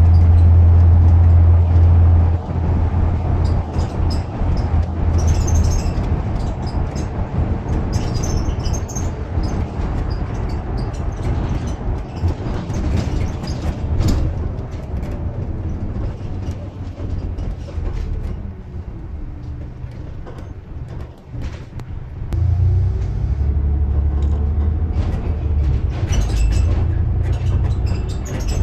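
Bus engine and road noise heard from inside the bus: a deep engine drone under load that eases off in the middle as the bus slows, then rises again as it pulls away about two-thirds of the way through.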